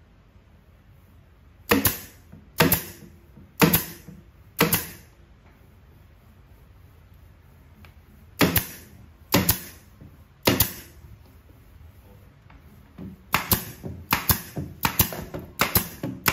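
Nails being driven into the wooden panels of a subwoofer cabinet: sharp single strikes about a second apart, four and then three, then a quicker run of strikes near the end.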